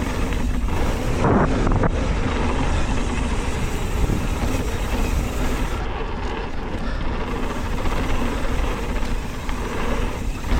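Mountain bike riding fast down a dirt flow trail: steady wind rush on the microphone mixed with tyre and bike rattle.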